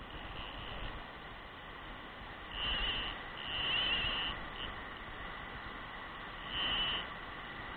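Steady rush of river rapids, broken by short high-pitched buzzes: one about two and a half seconds in, a longer one just after, a brief one, and another near seven seconds.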